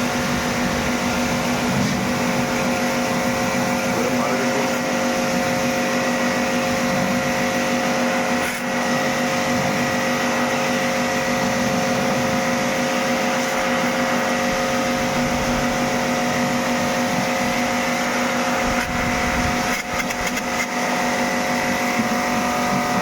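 A small electric motor running steadily throughout, with a constant whine of several fixed tones over a loud hiss, and a few faint clicks near the end.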